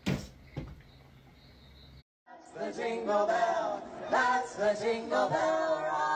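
A sharp thump as a cat leaps up at a wall-mounted TV, then a softer knock, over a faint low hum. After a cut about two seconds in, women sing together into microphones, loud, to the end.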